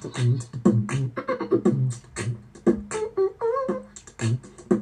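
Beatboxing-style vocal percussion: a fast run of sharp clicks and snare-like hits over low kick-like thuds, with a few short sliding hums.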